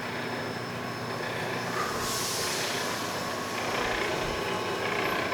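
Feed conveyor belt of an AEM Timesavers wide belt sander running at its top speed: a steady mechanical running noise.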